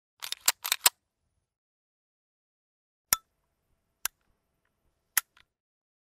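Gun handling foley: a quick cluster of metallic clicks and rattles in the first second, then three single sharp clicks about a second apart.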